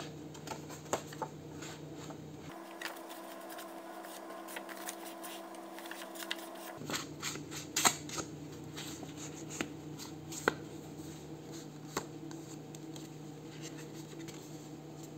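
Paper-crafting handling sounds: scattered light taps, clicks and rustles as the edges of a paper envelope journal base are inked, over a steady low room hum. The sharpest clicks come about eight seconds in and again a couple of seconds later.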